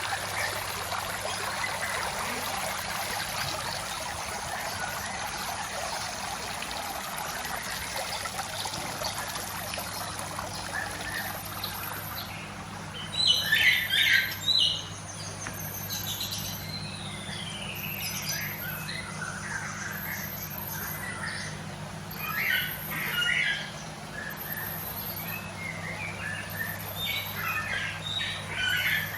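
White-rumped shamas calling: loud clusters of sharp chirps about halfway through and again near the end, with gliding whistled notes between them. Under them runs a steady hiss like trickling water, which fades after the first third.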